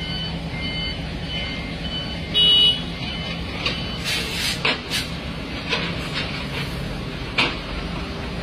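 Diesel engines of asphalt-paving machinery (dump truck, skid-steer loader and paver) running with a steady low drone. A reversing alarm beeps in the first couple of seconds, a short, loud high-pitched beep sounds about two and a half seconds in, and several sharp clanks follow later.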